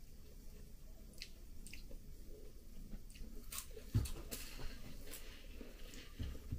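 Quiet close-up chewing of a crisp wafer biscuit, with a few scattered crunches.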